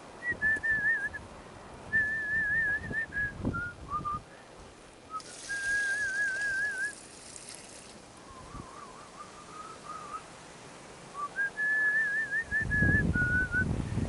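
A person whistling a slow tune: held notes with a wavering vibrato, stepping up and down between a few pitches in short phrases.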